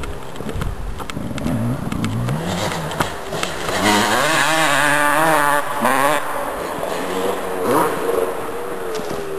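Two-stroke 250 cc motocross bike engines, their pitch rising and falling with the throttle; loudest about halfway through, where the note wavers quickly.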